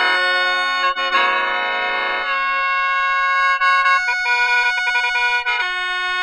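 Instrumental background music of held, sustained chords. It begins full and dense, then thins to fewer held notes about two seconds in, with the notes shifting a few times after that.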